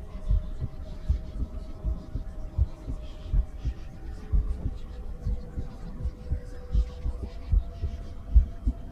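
A woman's heartbeat heard through a stethoscope: low, regular thumps about once a second over a faint steady hum.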